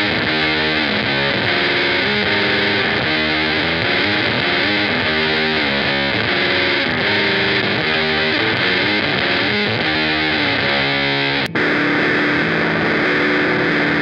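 Electric guitar played through fuzz and modulation effects pedals: a distorted, rhythmic riff of changing notes. There is a very brief break about eleven and a half seconds in, after which the notes ring out longer.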